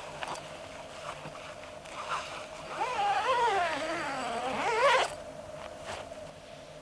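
A zipper on a WAQ Alpha TC SOLO DX canvas tent is pulled along the tent's panel, starting about three seconds in. It gives a rasp that wavers up and down in pitch for about two seconds and ends in a quick rise. A few light handling clicks come before it.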